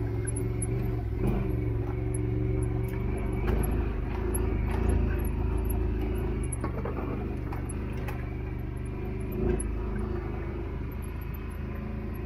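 Engine of a small off-road vehicle running at a steady speed while it is ridden along, with a few brief knocks.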